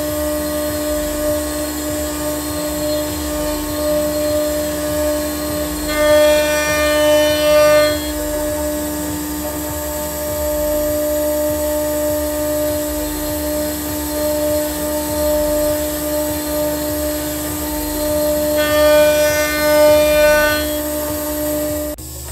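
CNC router spindle with a small carbide end mill, making a light finishing pass in plywood: a steady machine whine, with the vacuum hold-down pump running. Twice, about six and nineteen seconds in, a higher whine of several tones swells for about two seconds as the cutter works the pocket wall. The steady whine stops abruptly near the end.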